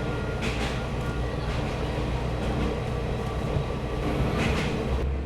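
Diesel railcar running along the line, heard from on board: a steady low engine and track rumble, with two brief hissing swells, one about half a second in and one near the end.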